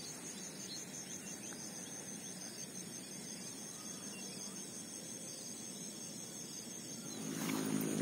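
Faint rural field ambience with insects trilling steadily at a high pitch. About seven seconds in, a louder low drone made of several steady tones comes in.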